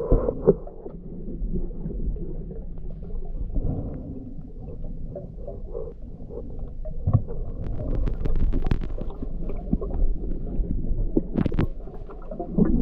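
Muffled underwater noise picked up by a camera held below the surface of a river: a steady low rumble with gurgles, and scattered sharp clicks and knocks, a cluster of them past the middle and one strong click a second or so before the end.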